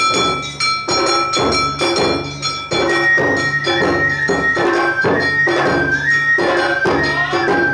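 Awa odori narimono music: drums and a kane hand gong keep a brisk, even beat of two to three strikes a second, under a high shinobue flute that holds long notes and moves to a higher melody about three seconds in.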